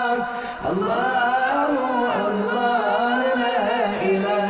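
Background vocal music: a man chanting a wavering, ornamented melody over a steady held note, with a short break about half a second in.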